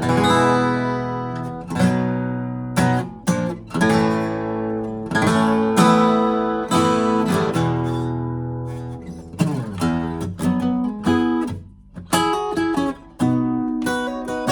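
2000 Gibson J-45 acoustic guitar playing chords that are struck and left to ring, with a mellow tone. There is a brief pause just before twelve seconds, then quicker picked notes.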